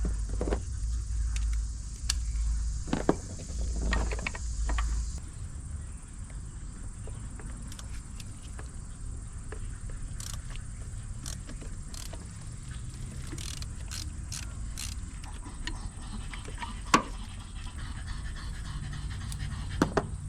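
Steady panting breaths close by, with scattered light clicks and clinks of hand tools. A low rumble runs under the first five seconds, then stops.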